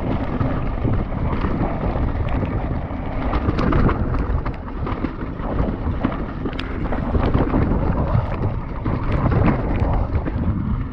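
Wind rushing over a GoPro's microphone as a mountain bike descends a rough trail, with the tyres rumbling and many sharp clicks and knocks as the bike rattles over the bumps.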